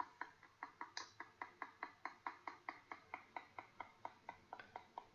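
Rapid, even run of keyboard clicks, about five a second, as a bird pecks the keys of a tablet's on-screen keyboard.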